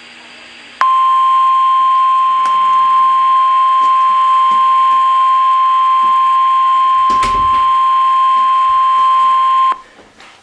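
NOAA Weather Radio's 1050 Hz warning alarm tone, the National Weather Service signal that a warning, here a severe thunderstorm warning, is about to be read. Over faint radio hiss, a loud, steady single tone starts about a second in and cuts off suddenly about nine seconds later.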